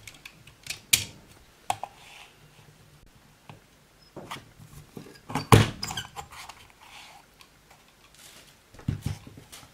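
Crop-A-Dile Big Bite hole punch being set on a fabric-covered cardboard diary cover and squeezed to punch a hole, with a run of short clicks and handling knocks. The loudest sharp clack comes about halfway through, and a few more knocks come near the end.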